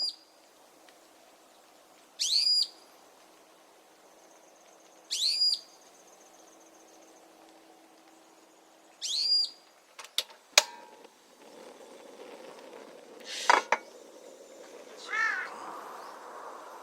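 A bird calling: three short, shrill whistled notes a few seconds apart, then a lower call near the end. Sharp clicks about halfway through and a knock with a brief ring a few seconds later.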